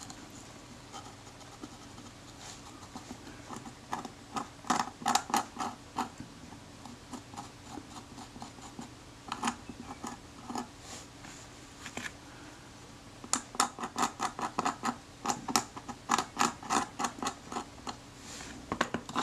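Scalpel blade scraping against the metal back of a Kodak Retina IIa camera, working under its glued leather covering. It comes in runs of quick, short strokes: one about four seconds in, then a longer run from about thirteen seconds, with a few single scrapes between.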